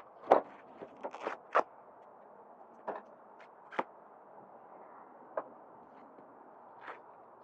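Camp kitchen gear being handled and set in place: a scattered series of sharp knocks and clicks, about ten in all, the loudest in the first two seconds.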